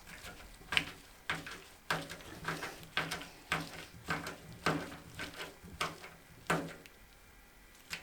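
Hands handling computer parts during assembly: a string of irregular sharp clicks and knocks of plastic and metal, about a dozen in the first seven seconds, then quieter.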